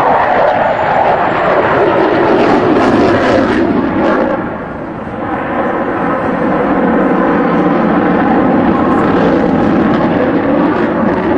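Loud, steady jet noise from the twin engines of a Sukhoi Su-37 in flight. It dips briefly about four seconds in, then builds back up.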